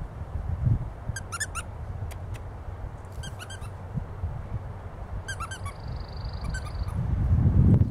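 A squeaky dog toy squeaked in four short bursts, over low wind rumble on the microphone that grows louder near the end.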